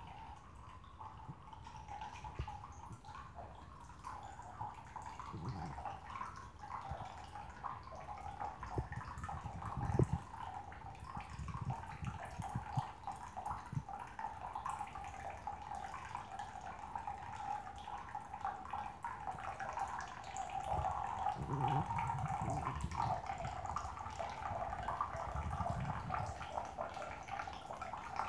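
A thin stream of tap water runs from a bidet faucet into the ceramic bowl with a steady trickling splash. A few soft thumps come in between, the strongest about ten seconds in.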